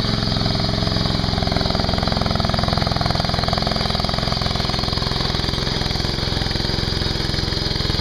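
Ditch Witch SK300 mini skid steer's engine running steadily while the machine is driven.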